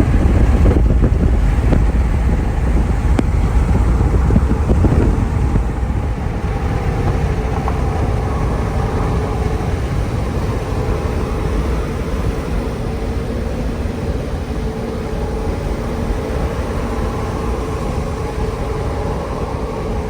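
Vehicle driving on the road, a steady rumble of engine and road noise with wind buffeting the microphone, heaviest in the first few seconds and then evening out.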